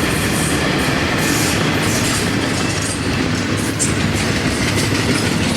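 Train rolling past at close range: a steady loud rumble of wheels on the rails with clattering, and a faint high squeal from the wheels.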